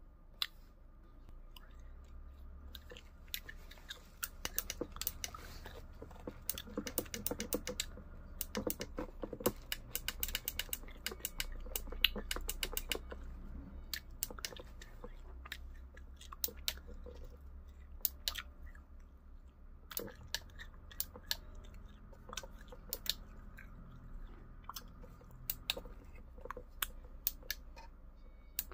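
Plastic keypad buttons on a Caterpillar excavator display monitor clicking as they are pressed over and over, in quick runs of presses and then single presses, with some crinkling of plastic wrapping.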